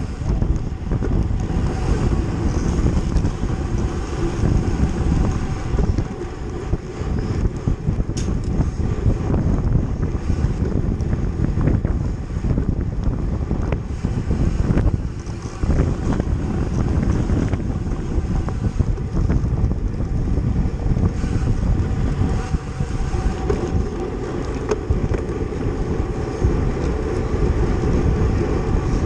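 Wind buffeting the microphone: a loud, rough, continuous rumble with no break.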